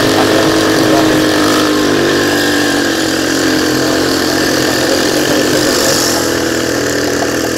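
Modified Honda C70 motorcycle engine running steadily at full throttle while climbing a hill, its pitch holding level.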